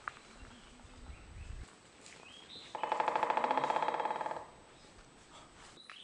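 Amami woodpecker drumming: one rapid, even roll of bill strikes on wood, about a second and a half long, beginning around the middle.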